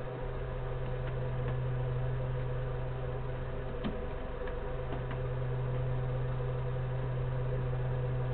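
Steady low electrical hum with a few faint clicks.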